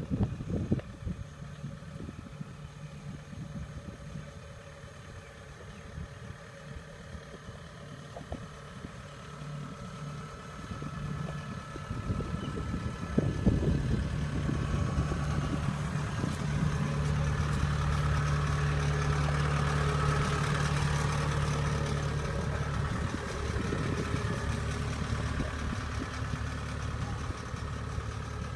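Diesel engine of a tracked Kubota combine harvester running steadily. It is fainter at first and gets louder and more even about halfway through.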